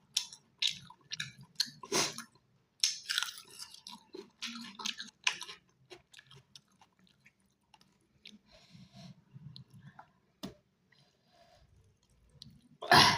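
Close-miked chewing and crunching of chicken, a run of crisp, wet bites and chews that come thick for the first half and thin out after, with one loud burst near the end.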